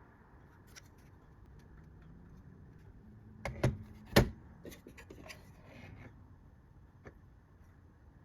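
Two sharp clicks or knocks close together about halfway through, with a few fainter ticks after and another small click near the end, over quiet room tone: hard plastic and metal computer parts being handled and set down.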